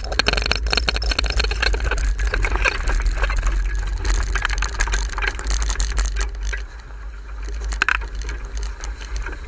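Wind buffeting the microphone and water rushing and spraying along a Gypsy sailing dinghy's hull as it sails fast on a reach in strong wind, with many sharp knocks and rattles from the boat. The rush eases a little about two-thirds of the way through.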